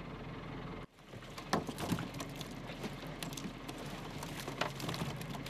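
Water splashing and dripping as live tiger puffers are scooped from a boat's live well with a hand net, with scattered clicks and knocks over a steady low engine hum. The sound changes abruptly about a second in.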